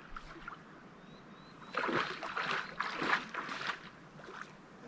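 Lake water splashing and sloshing as a person moves through it, a run of irregular splashes starting about two seconds in.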